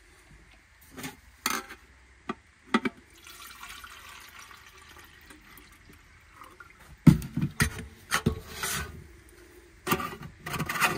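Water poured from a plastic bottle into a titanium canteen, filling steadily for a few seconds. Knocks and clatter of the metal canteen and the bottle being handled come before it and after it, the loudest about seven seconds in.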